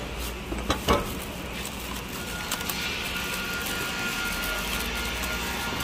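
A few sharp knocks a little under a second in as a plastic-wrapped cylinder head is turned over on a wooden bench. Steady background noise follows, with a faint steady high tone from about two seconds in.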